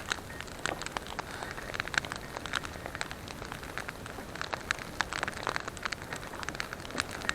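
Wood campfire crackling: irregular sharp pops and snaps over a steady hiss of burning.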